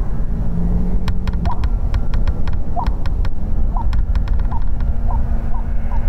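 Golf ball landing and bouncing across thin, snow-free lake ice. Each bounce is a sharp click followed by a short, rising, echoing chirp, and the bounces come faster and faster toward the end. A steady low rumble runs underneath.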